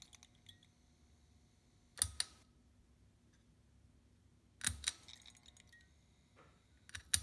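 Preheat fluorescent bulbs on magnetic adapter ballasts being switched on. Four sharp double clicks come about every two and a half seconds, each followed by a brief thin high electrical whine, over a steady low hum.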